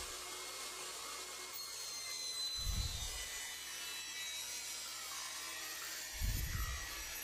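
Table saw ripping a board of quarter-sawn sycamore lengthwise, the blade running with a steady high whine as the wood is fed through. Two low thumps, about three seconds and six seconds in, stand out above it.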